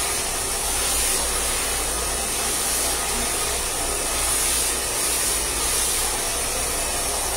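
Hand-held hair dryer running steadily while short hair is blow-dried over a round brush: a constant rushing hiss with a strong high edge.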